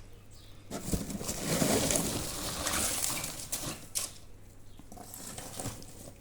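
Packaging being handled and unwrapped during an unboxing: irregular rustling and scraping with a couple of sharp clicks about a second in and near four seconds, louder in the first half and quieter afterwards.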